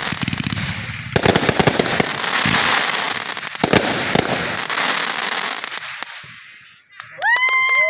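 Fireworks bursting overhead: dense rapid crackling with two sharp bangs, about one and three and a half seconds in, then the crackle dies away. A steady high whistling tone starts near the end.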